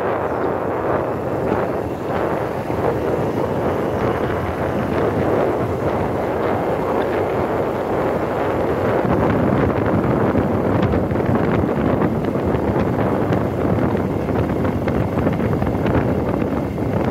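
Wind buffeting the microphone of a camera moving along a road: a steady, loud rush of noise with no words.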